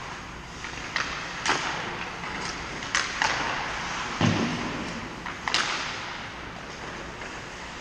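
Hockey sticks and puck clacking sharply on the ice several times, echoing around an indoor rink, over a steady hiss of skates on the ice; a duller thud about four seconds in.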